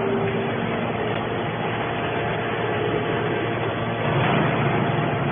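Y81-250 hydraulic scrap metal baler running: a steady mechanical noise, with a hum that stops about half a second in and the noise growing a little louder about four seconds in.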